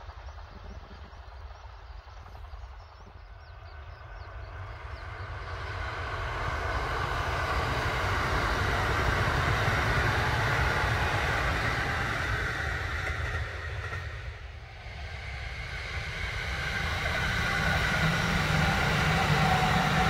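A 10-car Kintetsu rapid express electric train approaching and passing close by. It grows steadily louder over several seconds and holds, with a brief dip about three-quarters of the way through before rising again.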